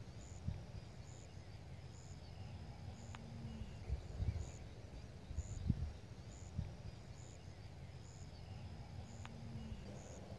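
Faint outdoor evening ambience at a pond: a short high-pitched chirp repeats evenly about one and a half times a second over a low, uneven rumble, with two brief low hums, one around three seconds in and one near the end.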